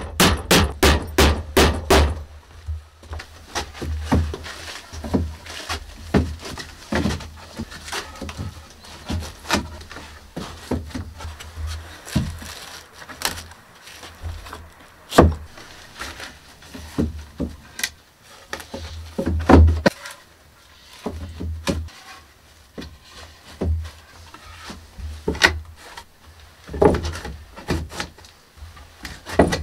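A quick even run of hammer blows on wooden wall boards, about four a second for the first two seconds. Then scattered single knocks and thuds as planks are handled and set against the wall.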